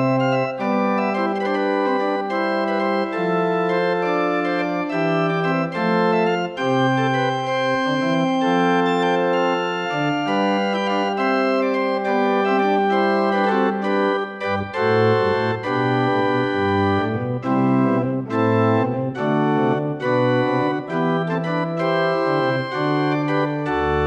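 Pipe organ playing slow, sustained chords; deeper bass notes join in a little past halfway through.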